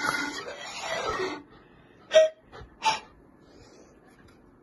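Zampoña (Andean panpipe) blown with a lot of breath: a breathy run down the pipes from high to low, then two short, sharp notes a little under a second apart, the first the loudest.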